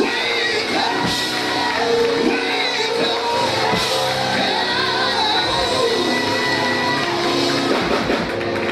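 Church music with long held chords, with voices shouting and singing over it in a large hall.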